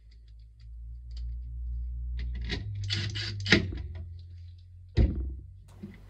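A desktop motherboard on its metal mounting tray being handled on a table: scraping and rattling, a sharp click about three and a half seconds in and a knock about a second and a half later, over a low rumble.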